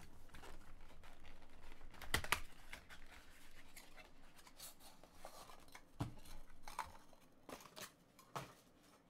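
Shrink wrap being torn off and a cardboard trading-card box opened by hand: crinkling and tearing of plastic and card, with scattered sharp clicks and knocks. The loudest knock comes about two seconds in.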